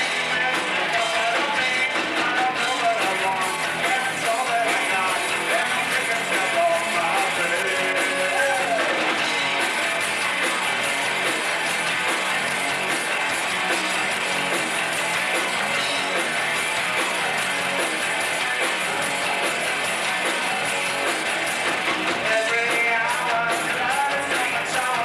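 Live rock band playing a song on electric guitars and drums.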